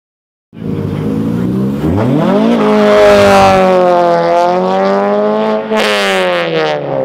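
After a short silence, a modified MINI's engine revs hard as the car accelerates away. Its pitch climbs steeply about two seconds in and holds high. It climbs again with a brief hiss near the end, then falls away as the car drives off.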